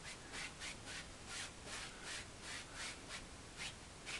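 Bristle paint brush working oil paint in quick, even back-and-forth scrubbing strokes, about three a second, a faint rhythmic rasp.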